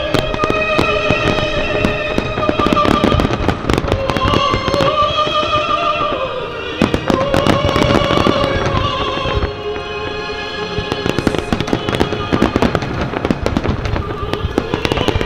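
Aerial fireworks bursting and crackling, many sharp reports in quick succession, over music with long held melodic notes.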